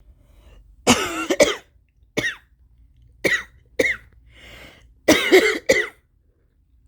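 A woman coughing hard and harshly in repeated fits: a quick run of three coughs about a second in, single coughs after that, then another run of several near the end. A rasping breath is drawn in between about halfway through.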